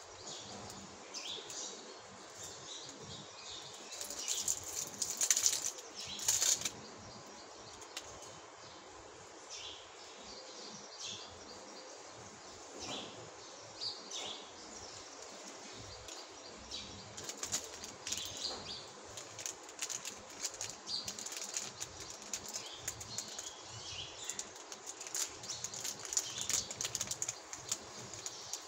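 Metallised candy wrappers crinkling and crackling in the hands as a foil-wrapped chocolate lollipop is unwrapped and a chocolate bar wrapper is opened. The crackle comes in short, irregular bursts, loudest about five seconds in, and grows busier in the second half.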